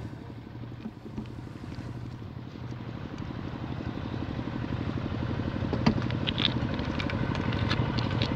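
A small engine running steadily and growing gradually louder, with a few sharp clicks or knocks near the end.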